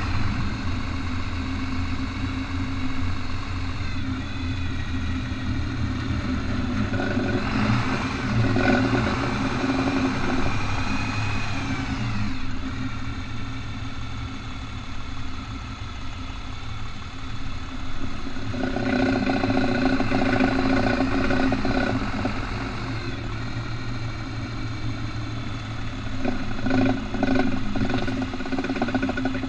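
A 4x4 vehicle's engine running steadily, with three bouts of rapid ratcheting clatter: the ratchet noise it makes when turning in four-wheel drive.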